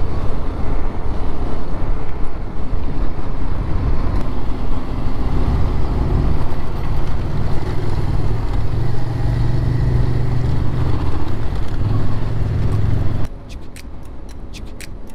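Yamaha Ténéré 700's parallel-twin engine running under way on a dirt desert track, its pitch rising and falling, with wind on the microphone. About thirteen seconds in the sound drops off abruptly to a quieter stretch with regular ticking.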